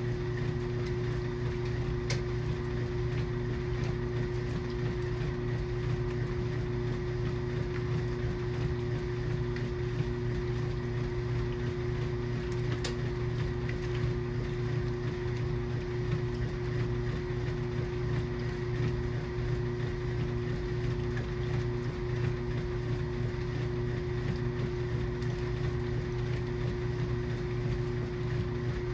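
KitchenAid washing machine running mid-cycle: a steady motor hum with a constant low tone that does not change.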